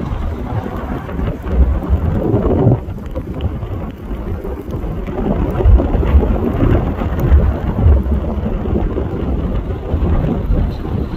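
Fagradalsfjall volcano erupting: a loud, continuous, uneven deep rumble with a dense spattering noise over it.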